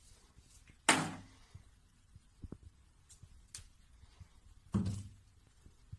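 Two soft thuds about four seconds apart, with a few faint ticks between them.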